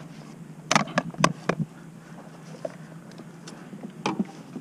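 Sharp plastic knocks and clatters as a fish-measuring board is handled and laid across a kayak with a fish on it: a quick cluster about a second in and one more knock near the end.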